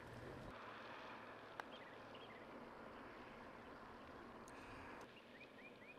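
Near silence: faint open-air ambience with a few faint, short, rising bird chirps, once about two seconds in and a quick run of four near the end, and one light click about a second and a half in.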